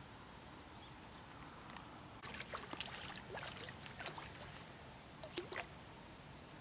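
Irregular crackling and splashing as a hooked black bass is handled among reeds at the water's edge, then a short louder splash a little after five seconds in as the fish goes back into the water.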